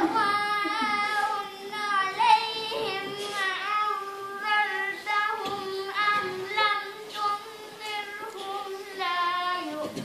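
A girl's solo voice singing without accompaniment: a slow melodic line of long held notes with wavering ornaments, stopping just before the end.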